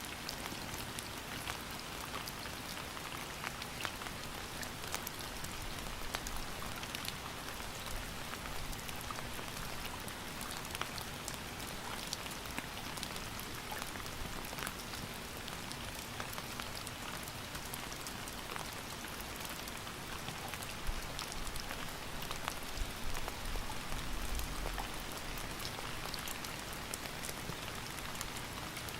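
Steady rain falling, with the close patter of individual drops ticking on a surface. A few low rumbles come through about two-thirds of the way in.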